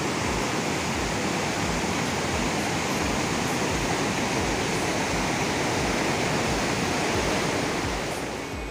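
Fast mountain stream rushing and splashing over rocks in a steady, full rush of white water that fades out near the end.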